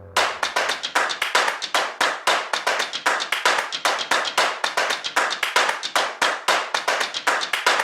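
Fast, steady run of sharp percussive claps, about five or six a second, with no pauses.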